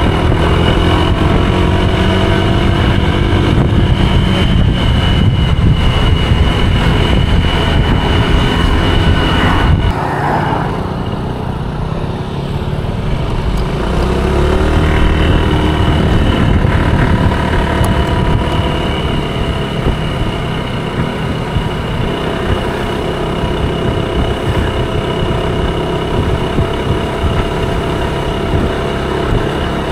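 Honda scooter engine running at riding speed, with wind and road noise. Its pitch rises twice as it speeds up, once near the start and again about halfway through, and the sound changes abruptly about ten seconds in.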